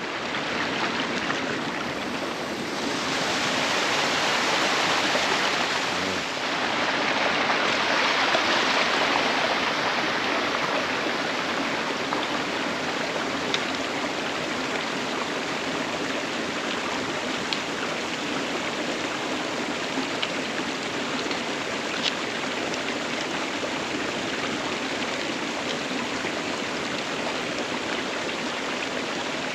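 Steady rushing of a hill stream and waterfall, swelling louder between about three and ten seconds in, with a few faint ticks.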